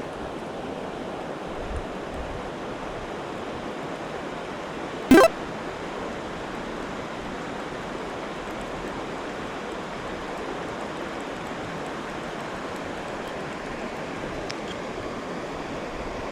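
Steady rush of a flowing stream, with one short, loud sharp sound about five seconds in.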